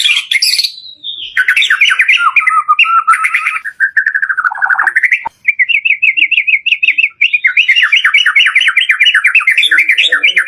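White-rumped shama (murai batu) singing loudly: fast trills and warbled, varied phrases with a short break about a second in and a note sliding downward around four and a half seconds.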